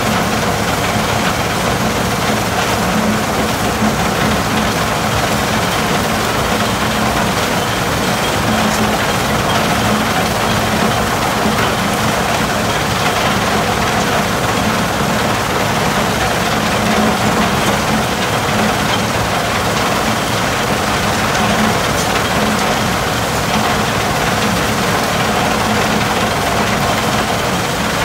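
Screen Machine (SMI) portable impact crusher running under load, crushing rock: a loud, steady, unbroken mechanical din.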